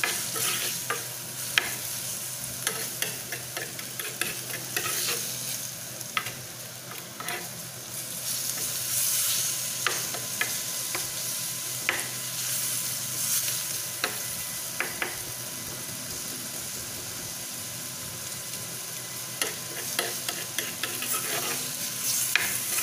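Sliced onions and curry leaves sizzling in hot oil in an earthen clay pot while they are sautéed, with a steady hiss. A metal spoon stirring them scrapes and clicks against the clay, the clicks coming most often near the start and the end.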